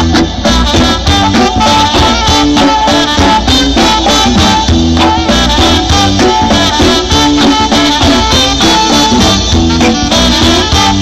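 Reggae band playing live, an instrumental passage without vocals.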